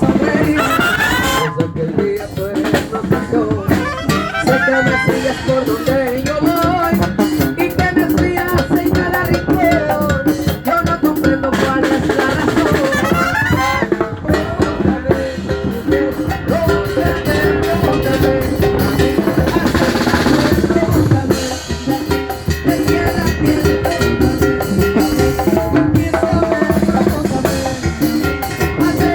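Banda sinaloense playing live: an instrumental stretch with brass and clarinet melody lines over a driving tambora, snare and cymbal rhythm.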